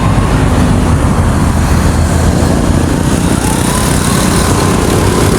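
Motor vehicle engine running steadily under loud, low road and traffic noise, with a faint rising whine about three and a half seconds in.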